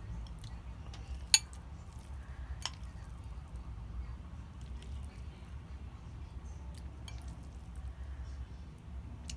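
Tableware clinking during a meal: a utensil strikes a dish sharply about a second in and again a little later, with fainter small ticks, over a steady low hum.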